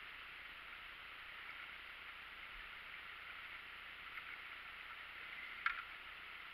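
Faint steady hiss as an inflatable raft is paddled across calm water, with one short sharp paddle knock or splash about five and a half seconds in.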